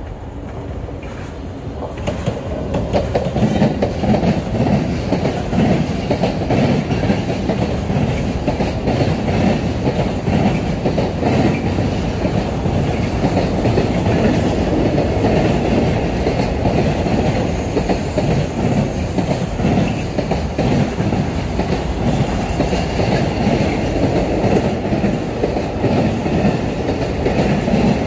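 Freight train hauled by an SNCF BB 26000 electric locomotive rolling past, with the steady rumble of many wagon wheels on the rails. The sound swells over the first two or three seconds as the locomotive draws level, then holds steady while the wagons pass.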